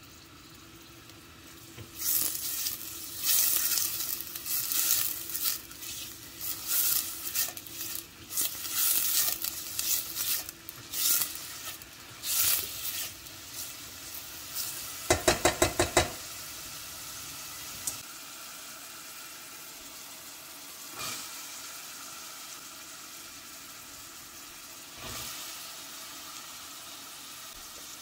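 Chopped onion and garlic sizzling in olive oil in a stainless steel pot, stirred with a silicone spatula that scrapes irregularly round the pot for the first half. About halfway there is a quick run of about seven sharp knocks, then a steady, quieter sizzle.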